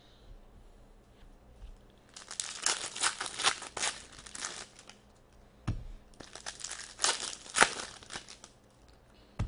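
Foil wrapper of an Upper Deck hockey card pack being torn open and crinkled by hand, in two spells of sharp crackling with a single dull knock between them.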